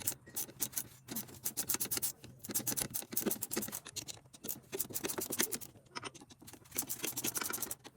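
Rapid, irregular clicking and scraping of a socket ratchet wrench working the 10 mm handlebar bolts on a four-wheeler, sped up in a time lapse.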